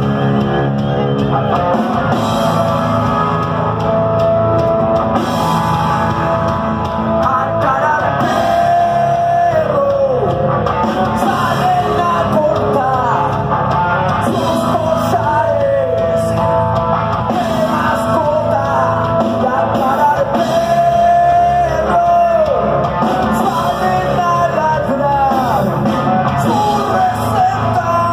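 Live rock band playing loud, with electric guitars, bass and drum kit under a sung lead vocal that slides in pitch, heard from the crowd through a phone's microphone.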